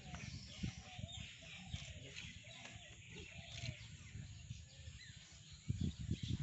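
Faint background birdsong, high chirps, with hens clucking in short repeated calls, over a low rumble.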